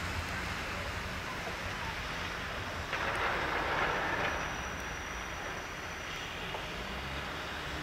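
Swiss electric passenger train running away over snow-covered track: a steady rumble with a louder rush of noise about three seconds in.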